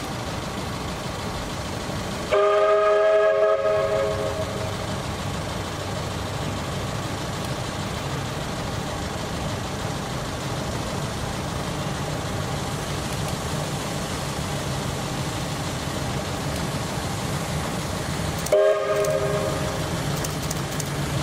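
Steam locomotive BB18¼ 1079 sounding its chime whistle: a long blast about two seconds in and a short blast near the end, over the steady sound of the train running.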